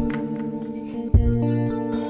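Background music: plucked guitar over held notes, with a low drum hit about a second in.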